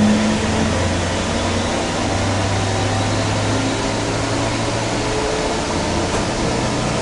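Steady hum and air rush inside a Kinkisharyo light rail car, from its ventilation and on-board equipment, with a low even drone throughout.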